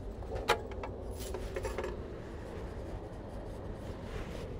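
Rustling and rubbing of belongings being handled on a carpeted sleeper-train berth, with a sharp click about half a second in and a run of small rustles soon after, over the steady low rumble of the Sunrise Seto train.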